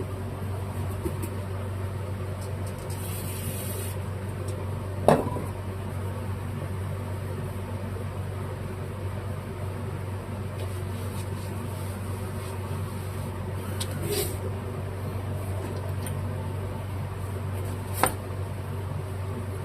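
Steady low hum from a fan or other running appliance, with a few sharp clicks of small parts or tools being handled: a loud one about five seconds in, a weaker one near fourteen seconds and another near the end.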